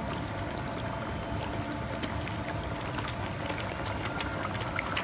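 Koi splashing and slurping at the water's surface as they crowd in for food: many small, quick splashes and gulps over a steady wash of water.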